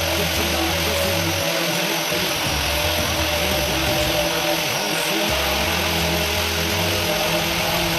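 Background music with held bass notes that change every second or so, over a steady whirring noise.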